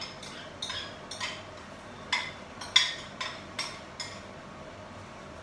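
A spoon tapping and scraping against a bowl while custard is spooned out: about a dozen sharp clinks over roughly four seconds, the loudest near the middle, then they stop.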